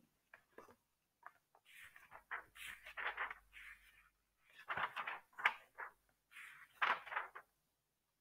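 Faint, scattered rustling and clicking noises in a few short clusters, with no voice.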